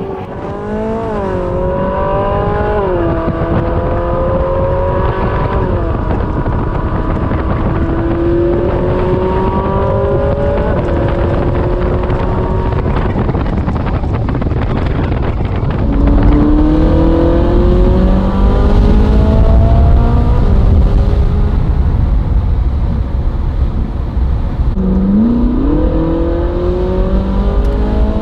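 Ferrari 458 Spider's naturally aspirated V8 accelerating through the gears: its pitch climbs in each gear and drops at each upshift. A heavier low rumble comes in about halfway through.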